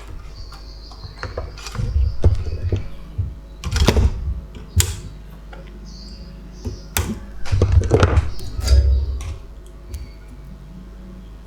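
Irregular clicks, taps and dull knocks from a capacitor being fitted to a TV power-supply board and tools being handled, with short pauses between them.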